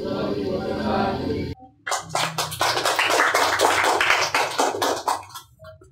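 A group of voices answering in unison, cut off abruptly about a second and a half in. A round of applause follows and dies away near the end.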